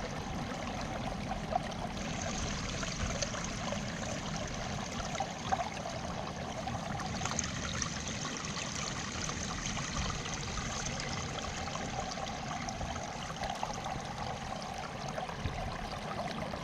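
Flood water flowing steadily, a continuous rushing trickle.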